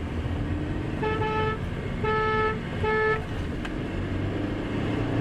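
Three short blasts of a vehicle horn, each on the same single pitch, about a second apart, over steady low traffic and engine rumble heard from inside a car's cabin. Near the end the car's engine note rises as it picks up speed.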